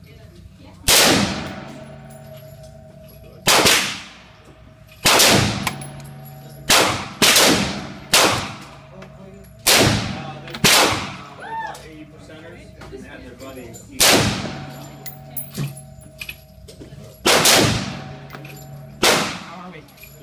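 AR-style rifle firing about a dozen single shots at an irregular, unhurried pace. Each shot is a sharp crack with a long echoing tail, and some shots come in quick pairs.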